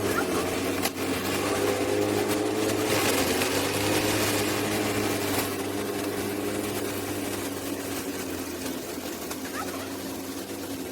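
Small petrol lawn mower engine running steadily under load, growing slightly fainter in the second half.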